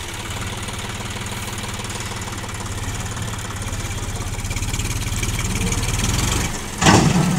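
John Deere 5050D tractor's three-cylinder diesel engine running hard under load, pulling an overturned trolley upright by rope, its pulsing beat building steadily, then easing off about six and a half seconds in. A short loud crash follows near the end.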